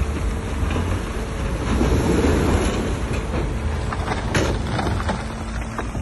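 Heavy earthmoving machinery at work: a diesel bulldozer or dump truck engine running with a low rumble while stone scrapes and clatters. The grinding swells about two seconds in, and a few sharp knocks come later.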